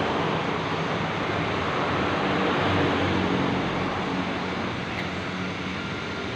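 Suzuki Satria FU 150's single-cylinder engine running steadily, its clutch housing just replaced.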